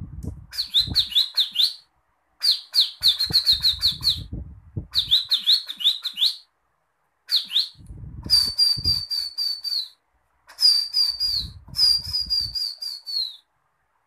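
A man imitating the call of a ciblek (bar-winged prinia) by whistling with his mouth: quick runs of short, high chirping notes, about six a second, in seven or eight bursts with brief pauses between them. Breathy puffs sound under several of the bursts.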